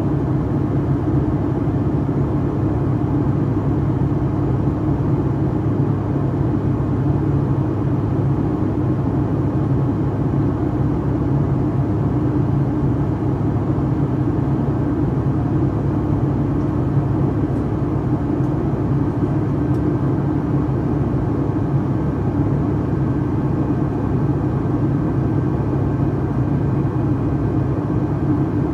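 Boeing 757-300's turbofan engines heard inside the cabin over the wing during the climb, making a loud, steady drone with a low hum.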